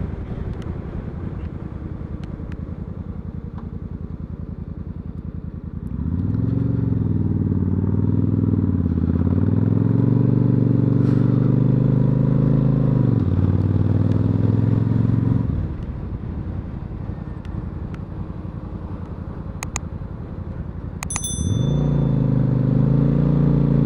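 Suzuki Marauder cruiser motorcycle engine, heard from the rider's seat. It runs at low revs, speeds up with rising pitch about six seconds in, and eases off again around thirteen to fifteen seconds. It pulls away once more near the end.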